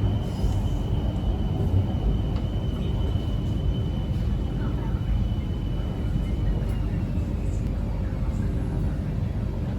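BTS Skytrain running, heard from inside the carriage: a steady low rumble with a thin high whine that slides down in pitch after about six and a half seconds.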